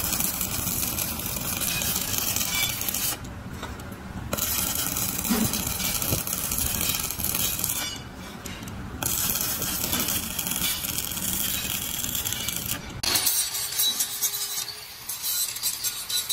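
Stick welding on a steel rickshaw wheel rim: the electric arc crackles and sizzles, breaking off twice for about a second. Near the end it changes to an angle grinder running against a steel rim with a steady whine.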